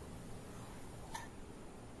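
Quiet room tone with a steady low electric fan hum, and a single light click about a second in.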